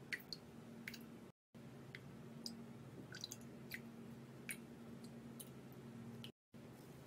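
Quiet small clicks and taps of bottles handled by gloved hands while liquids are poured into a glass measuring jug, over a steady low hum. The sound drops out completely twice for a moment.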